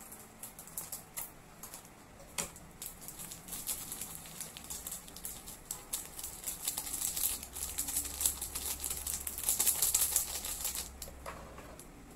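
Small foil seasoning sachet from an instant noodle pack crinkling in the fingers as it is worked and torn open: a quick run of sharp crackles, thickest and loudest from about two-thirds of the way through, that stops shortly before the end.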